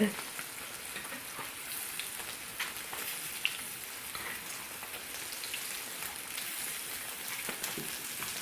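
Bone-in ribeye steak sizzling in butter and garlic in a hot cast iron skillet: a steady hiss with scattered small crackles and one sharper pop about three and a half seconds in.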